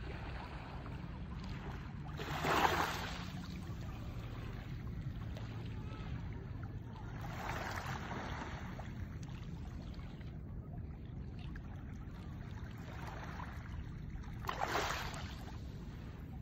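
Small waves washing up onto a pebbly sand shore, each wash a soft swell of splashing; four of them, the loudest about two and a half seconds in and another near the end, over a steady low rumble.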